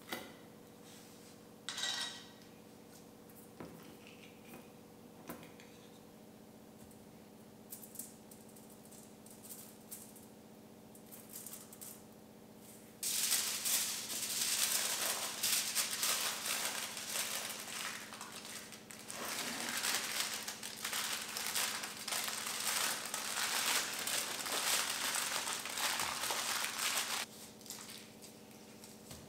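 Aluminium foil crinkling and crackling as it is wrapped tightly by hand around pressed pea-meal tablets. First come a few light taps and clicks of small aluminium cups being handled. About halfway through the long stretch of crinkling begins, then cuts off shortly before the end.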